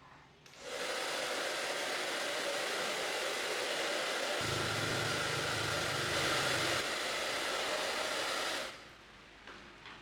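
Repaired hair dryer switched on, its fan blowing with a steady rush for about eight seconds before it is switched off. A low hum joins in for a couple of seconds midway.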